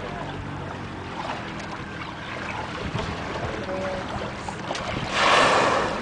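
Steady wind and sea noise aboard a boat, then about five seconds in a blue whale surfaces and blows: a loud whoosh of breath lasting about a second.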